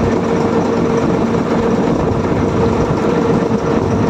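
Motorboat engine running steadily at a constant pitch.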